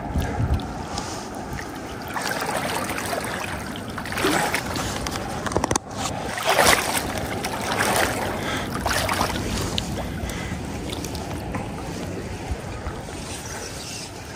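River water rushing and splashing around a boat drifting downstream, rising and falling in uneven surges.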